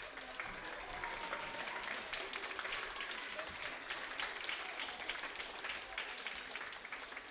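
Audience applauding, the clapping swelling about a second in and thinning out toward the end.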